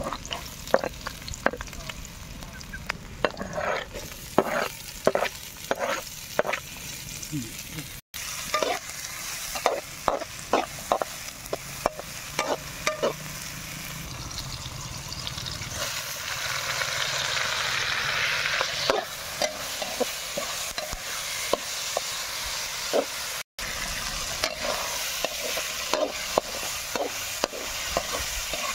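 Metal spatula scraping and clicking against a steel wok as chopped garlic, shallots and chilies sauté in sizzling oil. The sizzle grows louder from about halfway through, and there are two very short gaps.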